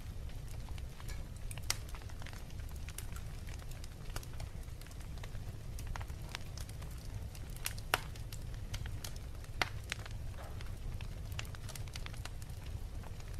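Wood fire burning in a fireplace: a steady low rumble with scattered crackles and sharp pops, the loudest about 2, 8 and 9.5 seconds in.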